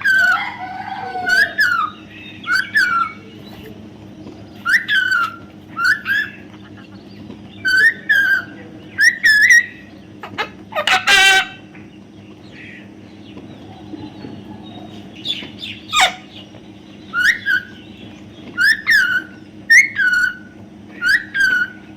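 Parrot calling repeatedly with short squawks, mostly in pairs, and a fast rattling call about eleven seconds in.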